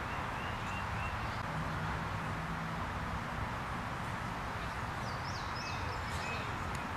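Steady outdoor background noise with a few short bird chirps, a couple near the start and a few more about five seconds in.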